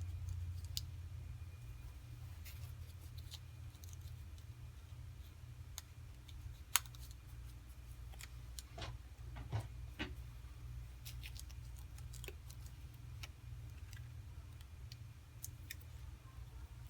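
Scattered faint clicks and taps of small tools and parts being handled on a smartphone during a back glass repair, over a low steady hum.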